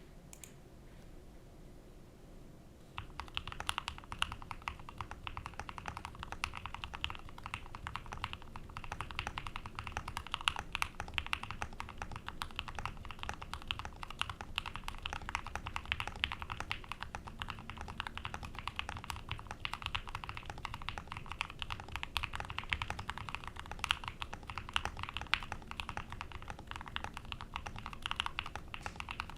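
Continuous fast typing on a mechanical keyboard with Everglide Aquaking V3 linear switches on a carbon fibre plate. The keystrokes are soft and muted, quieter than ordinary switches but not silenced. The typing begins about three seconds in.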